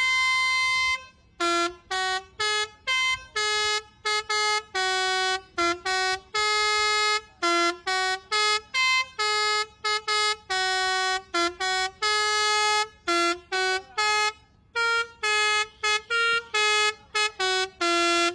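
Basuri 'telolet' multi-tone bus horn playing a melody, one horn note after another with short gaps, most notes brief and a few held about a second.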